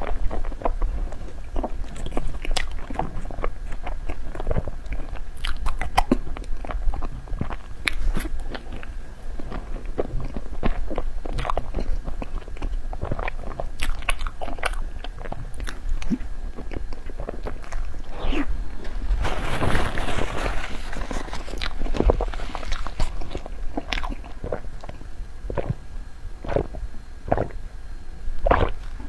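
Close-miked eating: biting and chewing soft xuemeiniang (snow skin mochi stuffed with cream), with many sharp wet mouth clicks and a longer noisy smack about twenty seconds in.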